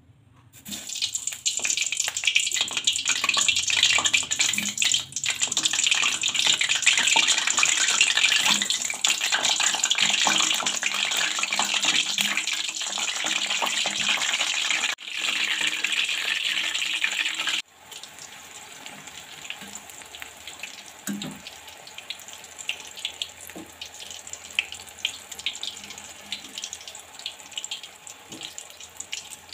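Eggplant pieces, still wet from soaking in water, sizzling in hot oil in a wok: a loud, dense crackling hiss. About two-thirds of the way through it drops suddenly to a quieter sizzle with scattered pops.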